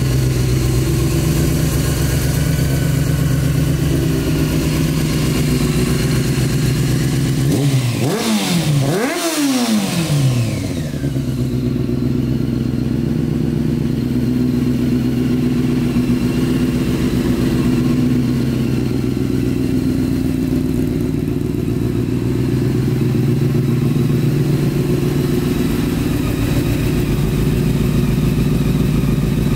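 Honda CBR600F sports bike's inline-four engine idling steadily through an aftermarket carbon end can, blipped twice about eight and nine seconds in, the revs rising sharply and falling back to idle.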